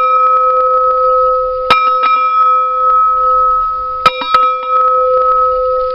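Heavy steel bell cut from the bottom of a thick welding cylinder, struck by its hanging clapper three times, the last two in quick succession about four seconds in. It rings on between strikes with a steady low tone and a higher one, slowly fading near the end.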